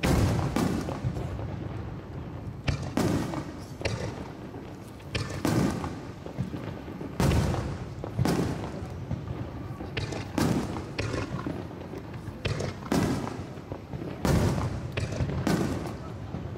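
Fireworks shells bursting in quick, irregular succession: a dozen or more sharp bangs, roughly one a second, each trailing off as it dies away.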